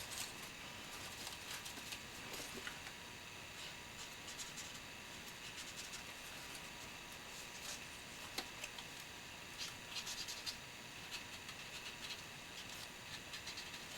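Faint scratchy strokes of a pen colouring stripes onto folded paper, with scattered small ticks and taps of paper being handled.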